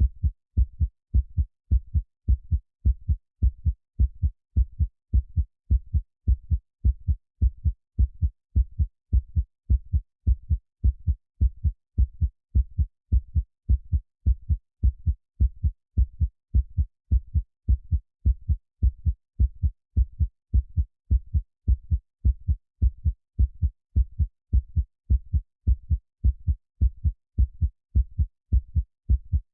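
Heartbeat sound: low, muffled thumps in a steady, even rhythm, about two a second.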